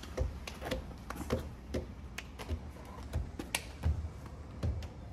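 Scattered light clicks and taps from parts and tools being handled while a front splitter is held and lined up under a car's bumper, with one sharper click about three and a half seconds in.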